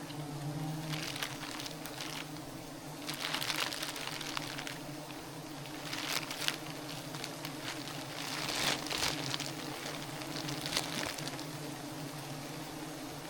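Honeybees buzzing as a steady low hum, with irregular rustling noises coming and going over it.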